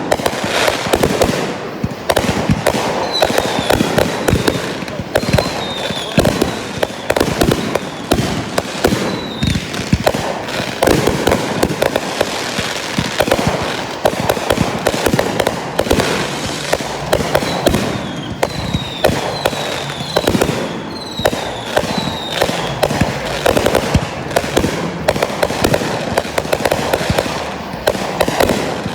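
Consumer fireworks going off in a continuous barrage of rapid pops, crackles and bangs, with short falling whistles now and then.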